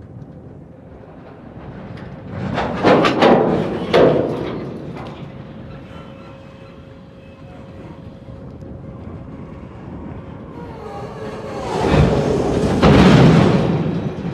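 Empty centerbeam flatcars of a freight train rolling slowly past, with a steady rumble and two spells of loud clanking and rumbling from the wheels and couplings, about two seconds in and again near the end.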